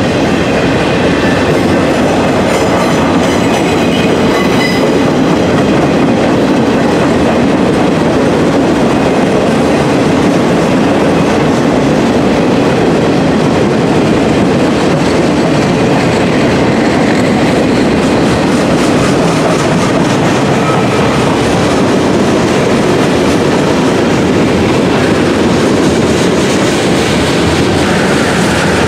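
Freight train rolling past, a loud steady rumble of its cars' wheels on the rails.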